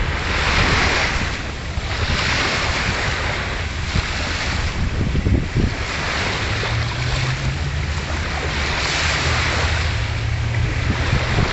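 Small waves washing onto a sandy shore in swells about every two seconds, with wind buffeting the microphone. A low steady hum comes in about halfway through.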